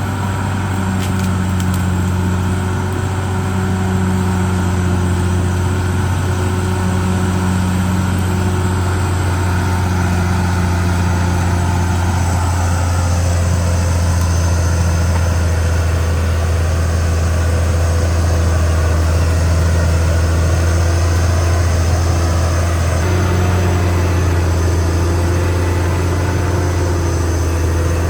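Diesel engine of a Caterpillar D6R XL bulldozer running steadily, its note shifting about halfway through and again near the end.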